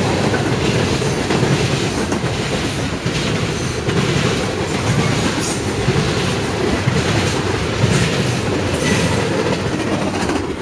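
Mixed freight train of boxcars, tank cars and covered hoppers passing close by at speed: a steady rumble with wheels clicking over rail joints. The last car goes by near the end.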